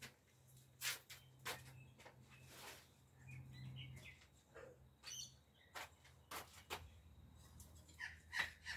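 Faint bird chirps, a few short calls scattered through, with light clicks and rustles in between.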